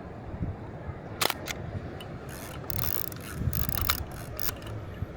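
Kowa Six medium format film camera: a sharp shutter-and-mirror click a little over a second in, then the film-advance crank ratcheting for about two seconds as the film is wound on.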